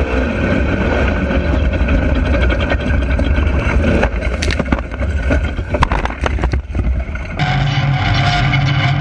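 A side-by-side UTV's engine runs at speed, with wind and rattle on the onboard camera. About four seconds in, a burst of knocks, cracks and thumps follows as it veers off the dirt track into the brush and crashes. Near the end the sound cuts abruptly to a different, steady hum.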